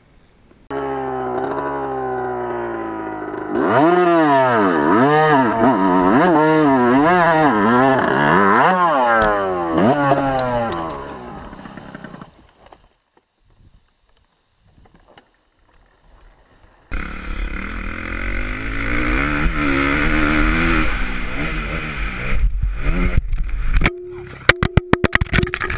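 Dirt bike engine revving, its pitch swinging up and down in quick repeated surges, then cutting out. After a pause a second dirt bike runs at speed, and near the end a rapid string of sharp knocks comes as the bike crashes.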